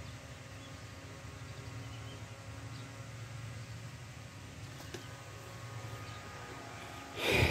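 Faint steady low hum with thin steady tones above it, and a short burst of noise near the end.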